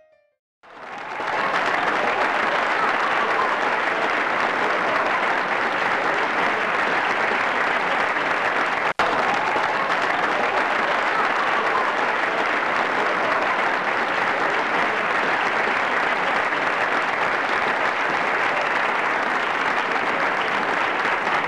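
Crowd applause, steady and dense, swelling in over the first second or two, with a momentary cut about nine seconds in.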